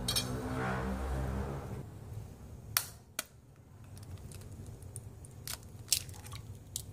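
A kitchen knife blade tapping and cracking chicken eggshells over a bowl: a handful of sharp clicks, the loudest about three seconds in and again near six seconds, when the shell breaks open. A low muffled rumble fills the first two seconds.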